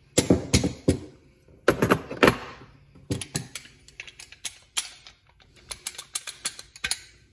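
Hilmor tube bender parts clattering as they are set into the molded slots of its hard plastic carrying case: an irregular run of sharp clacks and knocks.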